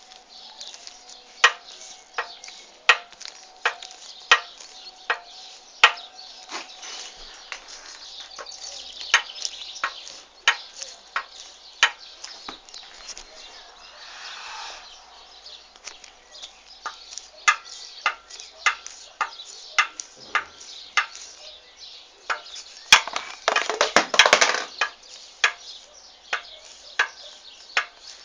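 Repeated sharp knocks or taps, irregularly spaced about one a second, with a longer, louder scuffling burst near the end.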